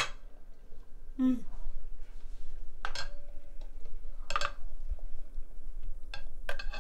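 A metal ladle stirring punch with ice and frozen cranberries in a cut-glass punch bowl, clinking against the glass a few times, a second or two apart, with a short ringing from the bowl.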